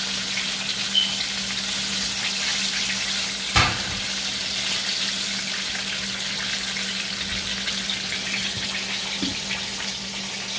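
Breaded chicken wings deep-frying in hot oil in a wok, a steady crackling sizzle. A single sharp tap about three and a half seconds in.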